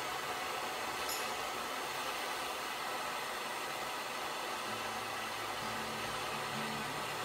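Small brass gas jeweller's torch burning with a steady hiss while its flame heats a sterling silver ring for soldering.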